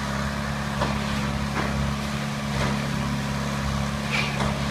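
Diesel engine of the truck working the concrete pour, running steadily at a constant pitch: an even low hum that holds throughout.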